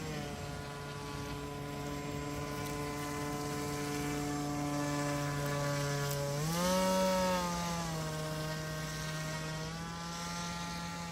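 HobbyKing Swamp Dawg RC airboat's electric motor and air propeller running with a steady buzzing hum. About six and a half seconds in, the pitch rises briefly as the throttle goes up, then falls back to a steady run.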